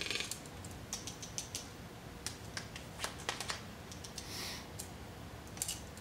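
Irregular sharp clicks and taps of a toucan's bill knocking against the prey it is tossing around, with two short rustles, one at the start and one about four and a half seconds in.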